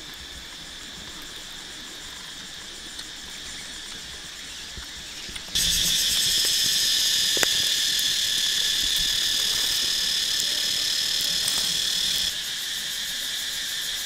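Steady, shrill chorus of insects chirring. It jumps much louder about five and a half seconds in and drops back down about two seconds before the end, with one sharp click in the middle.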